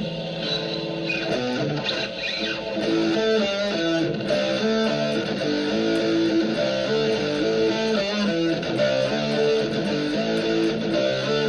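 Electric guitar playing a riff through a high-gain British half-stack amp tone, one that looks like a Marshall Super Lead.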